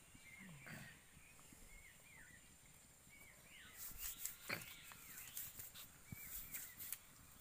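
Faint short bird chirps repeating every second or so. From about four seconds in come scattered soft crackles of a poori frying in hot oil in a kadai.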